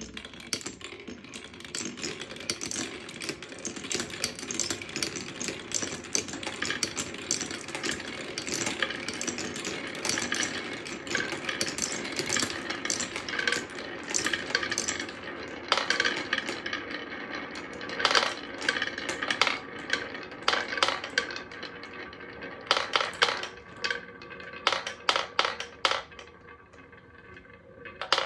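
Glass marbles rolling and clattering down a wooden marble run, a dense continuous rattle of many small clicks and clacks that thins to separate sharp clacks near the end.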